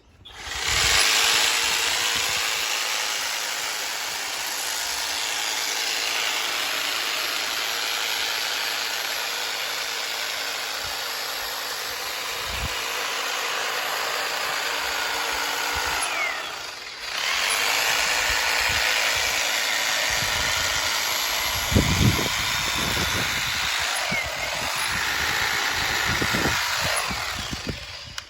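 Ego battery multi-tool's hedge trimmer attachment running and cutting through a hedge with a steady whirr, cutting out briefly about two-thirds of the way through and starting again.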